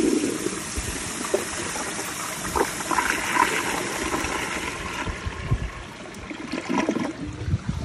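Kohler Kingston toilet flushing through its flushometer valve: water rushes into the bowl and swirls down the drain, carrying a washcloth and a grocery bag out in one flush, then fades to trickling as the bowl refills.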